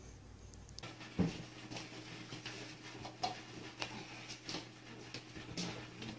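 Cats crunching dry kibble from small plates: a run of irregular clicks and crunches over a steady low hum.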